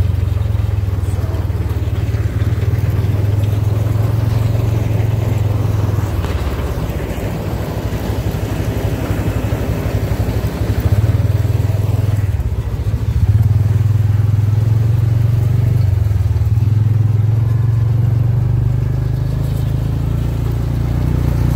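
Tractor engine running steadily with a deep drone while powering a Krone KR 125 round baler. The drone eases and turns rougher for several seconds, then returns strongly about two-thirds of the way through.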